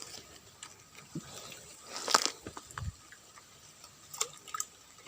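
Irregular small splashes and drips of water with scattered clicks and knocks, the loudest splash about two seconds in and a dull thump shortly after.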